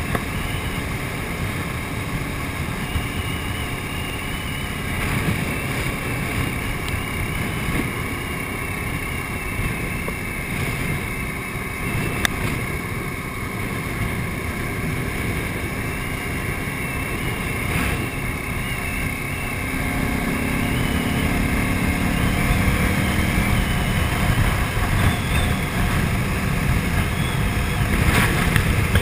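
KTM 950 Super Enduro's V-twin engine running steadily at road speed, mixed with wind rushing over the microphone. The engine note comes through a little clearer and louder about two-thirds of the way through.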